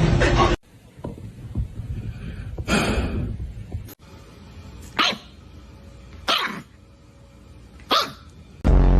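A dog sneezing: three short, sharp sneezes about a second and a half apart. A loud pitched sound cuts in briefly near the end.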